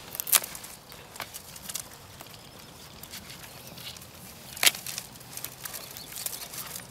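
Loppers cutting through brittle dead raspberry canes near the ground: two sharp snaps, one about a third of a second in and one a little before five seconds in, with lighter clicks and the rustle of dry canes in between.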